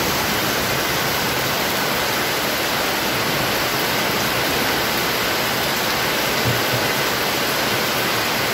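Heavy rain pouring down steadily, splashing onto flooded concrete and into a water-filled plastic bin: a dense, even rush of water.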